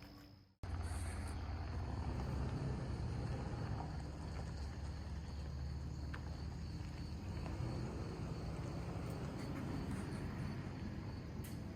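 Crickets chirping steadily over a louder, steady low rumble; the sound drops out for a moment about half a second in, then resumes.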